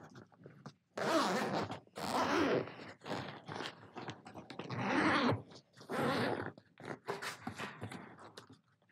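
Zipper on a padded fabric camera case being pulled open in several short pulls, with scraping and rustling of the case and its cardboard box.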